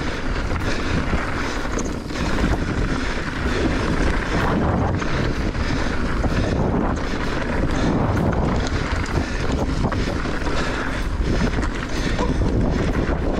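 Wind rushing over the microphone as a Giant Reign E electric mountain bike is ridden along a dirt trail, with tyre noise and frequent small knocks from the bike over rough ground.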